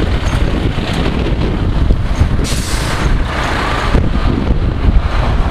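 Fire engines and a Land Rover fire tender driving past with their engines running, and a sharp hiss of air brakes about two and a half seconds in.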